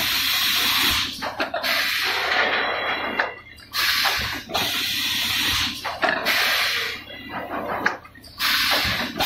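Automatic 4-cavity PET bottle blowing machine running its cycle: loud bursts of compressed-air hiss about every two and a half seconds, each lasting one to two seconds, with mechanical clicks in the short gaps between.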